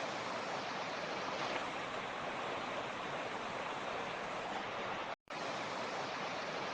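Mountain creek rushing steadily over rocks, a continuous water noise, broken by a momentary dropout to silence about five seconds in.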